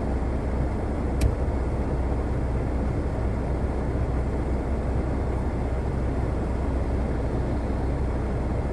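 Steady low rumble of car cabin noise while stopped at a junction, with traffic moving on a wet road, and a single sharp click about a second in.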